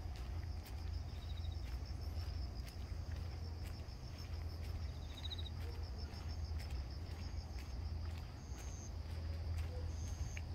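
Insects trilling steadily in a high, rapidly pulsing chirp, with a few short higher chirps, over a constant low rumble and scattered light footstep clicks.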